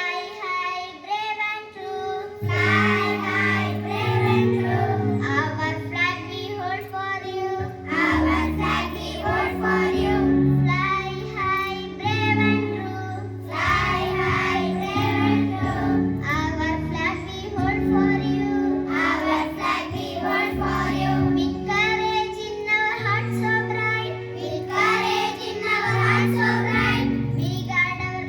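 Children singing a song over a recorded music backing track with a steady bass line.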